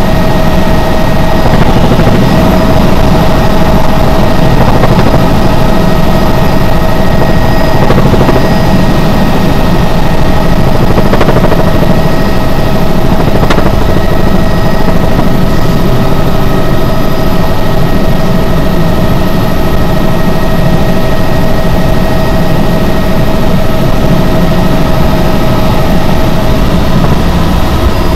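Helicopter in flight heard from inside the cabin: a loud, steady rotor and engine drone with a constant whine.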